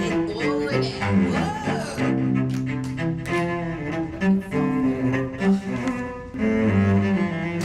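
Cello music: a bowed cello playing a melody of held notes, with deeper notes sounding beneath.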